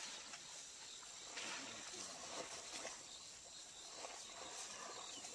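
Quiet outdoor bush ambience: a faint steady hiss with no distinct event standing out.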